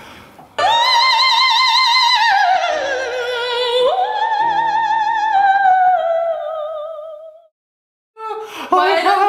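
A man singing in a high operatic falsetto, imitating a female singer. He holds one long high note with wide vibrato that slides downward, jumps up to a second held note that fades out, and after a short break the singing starts again near the end.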